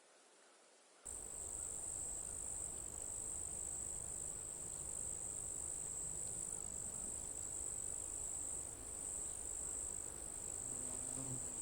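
Insects shrilling, a steady high-pitched drone that starts abruptly about a second in, as in a field of crickets or cicadas.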